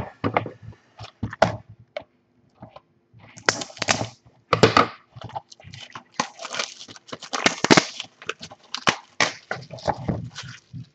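Crinkling and tearing of the plastic wrap on a sealed box of trading cards as it is unwrapped, in irregular crackly bursts, most of them from about three seconds in, with scattered clicks and knocks from handling the cardboard box.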